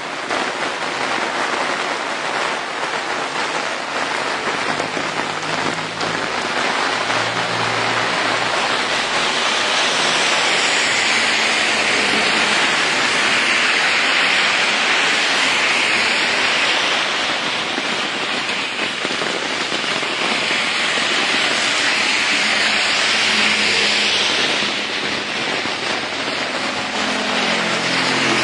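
Heavy rain pouring steadily onto a street, a dense continuous hiss. The hiss swells louder twice as vehicles pass, their tyres spraying through water on the road.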